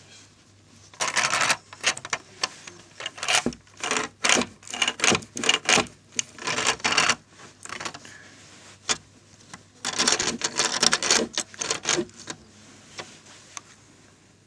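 Lego plastic parts clicking and clattering in quick runs as the brick-built compactor model is handled. There are three bursts, the longest in the middle.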